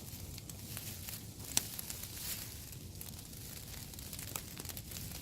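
Rustling and crinkling of branches and leaves being handled, over a steady hiss of rain and fire crackle, with a sharp crack about one and a half seconds in and a smaller one near the end.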